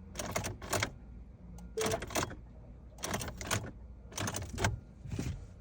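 Sharp clicks in pairs, about one pair a second, from the ignition of a 2015 Ford Fusion being worked, with a brief warning chime after the first pair; the engine does not crank, a no-crank fault the mechanic puts down to a bad ignition switch.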